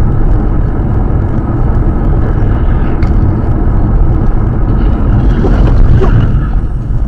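Steady low rumble of a car driving at speed on a highway, heard from inside the cabin: road and engine noise.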